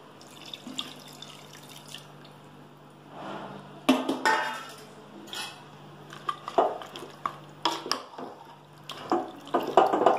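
Water poured from a steel bowl into an aluminium pot of thick chicken masala, then a steel spoon stirring it, with sharp clinks and scrapes of the spoon against the pot.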